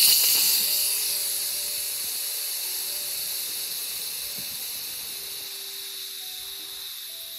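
Steam hissing out of an electric pressure cooker's pressure-release valve as it is turned from closed to open, venting the pressure after cooking. The hiss starts suddenly and slowly weakens.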